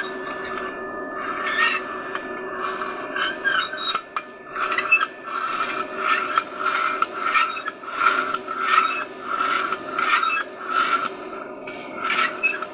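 Abrasive rubbing on a steel weld seam in repeated back-and-forth strokes, about one and a half a second, over a steady machine hum.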